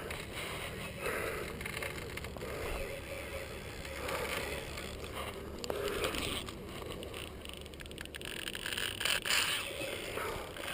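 Fishing reel being cranked while a large fish fights on the line, with a few sharp clicks near the end.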